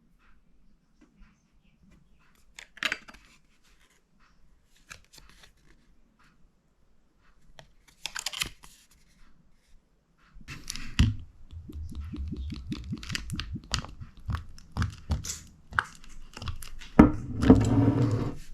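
Scattered faint clicks and taps, then from about ten seconds in a dense run of rustling, crackling and tearing-like handling noise, loudest near the end.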